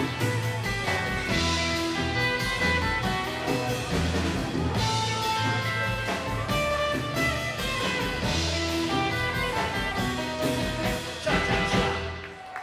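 Rockabilly band playing live: strummed acoustic guitar and drums in an instrumental passage with a steady beat. The band ends the song on a loud final hit near the end, which then rings away.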